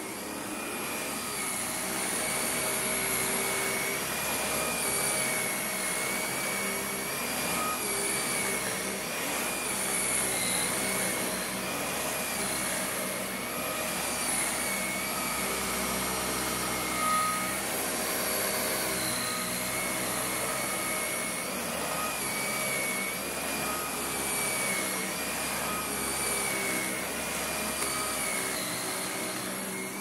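Dyson upright vacuum cleaner running on thick carpet, a steady high motor whine that wavers slightly in pitch as the cleaner head is pushed back and forth.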